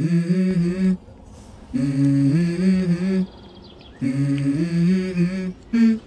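Song intro: a hummed melody in three repeated phrases of about a second and a half, each starting low and stepping up in pitch, with short pauses between them.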